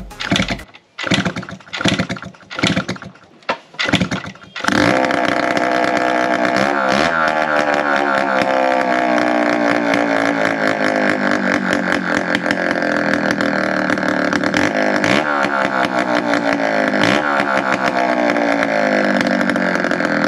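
Yamaha RX 100 two-stroke single-cylinder engine being started on its first try after the head rebuild: a few separate bursts, then it catches about four and a half seconds in and runs steadily. It is running without its main silencer fitted.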